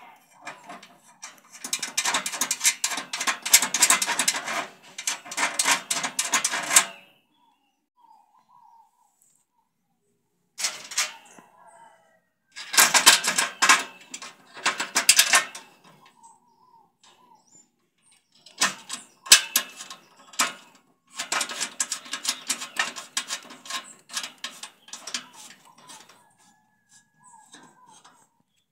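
Rapid metallic clicking and rattling in several bursts a few seconds long, as steel nuts and washers are spun by hand onto threaded bolts to hold a pillow-block bearing housing.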